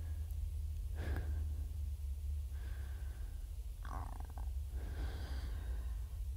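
Metal forks scraping and clinking on ceramic plates as spaghetti is twirled: a clink about a second in, then a few short squeaky scrapes, over a low steady hum.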